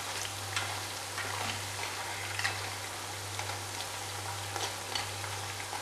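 Ribbon murukku strips deep-frying in hot oil, a steady sizzle, with a few light clicks of a metal spoon against the nonstick pan as the strips are turned over.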